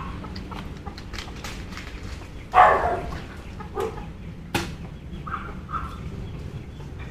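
A dog barks once loudly about two and a half seconds in and more softly about a second later. A sharp click follows, with faint scattered ticks around it.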